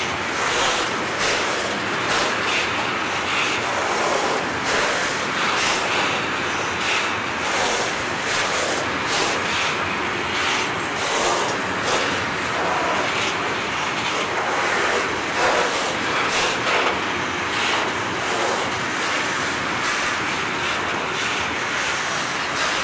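Freight wagons loaded with steel billets rolling past: steady noise of steel wheels on rail, with repeated clacks as the wheelsets run over rail joints.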